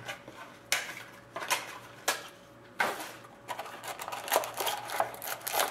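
Hands handling a cardboard trading-card box and working the wrapped pack out of its inner tray: a few separate taps and scrapes, then denser rustling in the last second or two.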